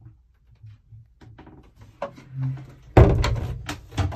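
Wooden cabin door being opened, with a few soft clicks and then a sudden loud knock about three seconds in, followed by rattling and handling noise.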